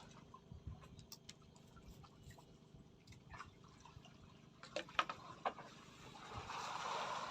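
Scattered light clicks and taps, a few sharper clicks about five seconds in, then a short rush of splashing water near the end.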